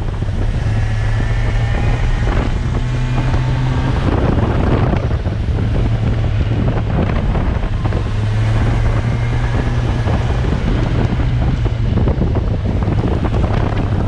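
Motorcycle engine running at a fairly steady speed, a low drone, under heavy wind noise on the microphone.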